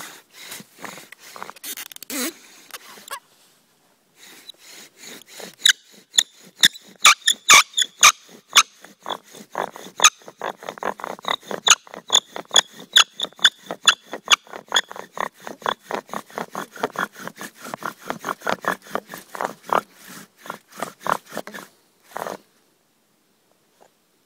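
Bow drill: a willow spindle driven by a sawing bow grinds and squeaks in the hearth board, with a quick, rhythmic squeak at every stroke, several a second. There is a short break about three seconds in, and the drilling stops about 22 seconds in.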